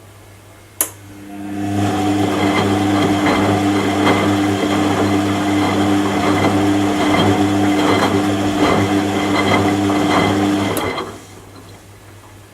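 Washing machine: a sharp click about a second in, then the motor starts up and turns the drum with a steady hum and a light rattle for about nine seconds before stopping.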